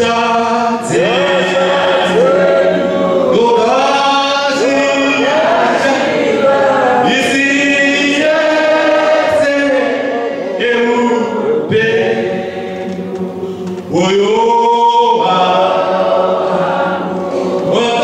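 Church congregation singing a hymn together in chorus, many voices in sung phrases with short breaks between the lines.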